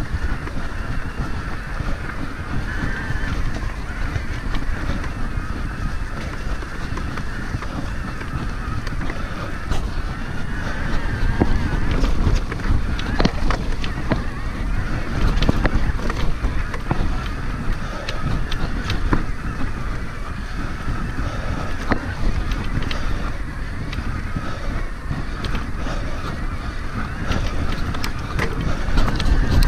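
An electric mountain bike being ridden over a rough trail: wind buffeting on the helmet camera's microphone, tyre and frame rattle with many small knocks over the ground, and a faint motor whine that wavers in pitch.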